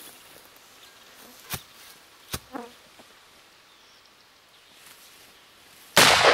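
Gunshots: two short sharp cracks early on, then a much louder shot near the end that rings out and dies away over more than a second.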